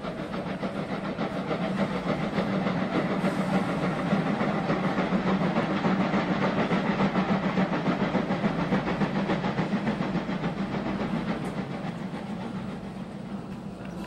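Steam locomotive running with a fast, steady rhythmic chuff and hiss, growing louder over the first few seconds and easing off slightly near the end.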